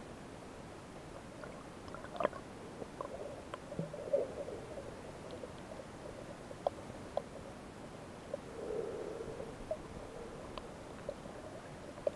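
Muffled underwater sound picked up by a camera submerged in a shallow rocky tide pool: a steady dull hiss that swells twice, with scattered sharp clicks and ticks.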